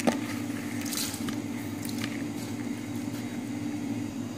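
Soaked black masoor lentils tipped from a plastic bowl into a steel saucepan of water, with a click just after the start and a short rush about a second in. A steady low hum lies under it.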